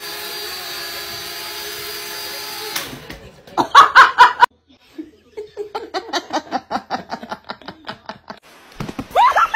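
A small toy helicopter hovering, its motor and rotor making a steady whine that cuts off after a few seconds. Then comes loud laughter, the loudest sound here, followed by a long run of rapid laughing at about four bursts a second.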